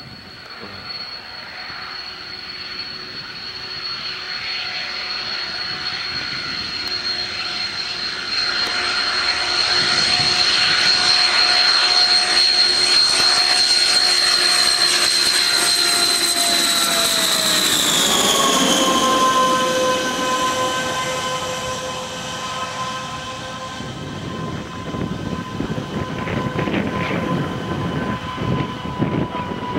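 YS-11 airliner's Rolls-Royce Dart turboprop engines on landing approach: a high whine that grows louder as the plane comes in low, then drops in pitch about 18 seconds in as it passes by, and runs on at a lower pitch as it lands on the runway.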